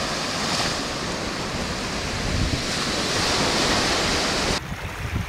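Surf breaking and washing up on a sandy beach, with wind on the microphone. The noise is steady and drops suddenly near the end.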